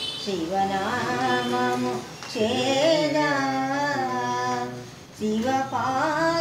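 An elderly woman singing a devotional song unaccompanied, holding long notes that waver in pitch, with short breaks for breath about two seconds and five seconds in.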